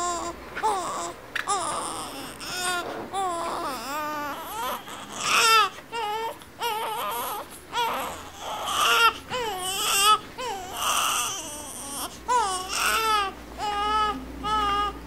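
An infant crying: a steady run of short wails, each rising and falling in pitch, with a few breathier, rougher cries mixed in.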